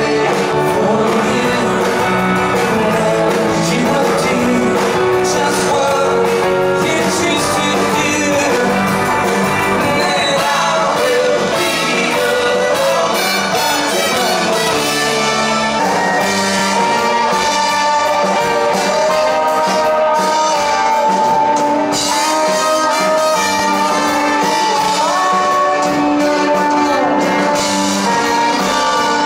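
Live band music with trumpets, electric guitar, drums and singing, loud and continuous.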